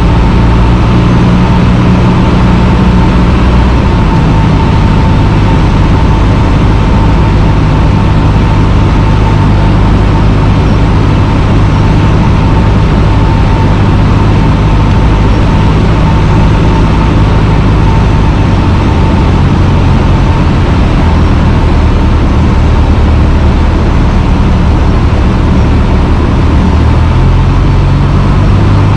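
Cessna 150's Continental O-200 four-cylinder engine and propeller droning steadily in cruise, heard loud inside the cockpit, with small shifts in pitch a few times and a thin steady whine above it.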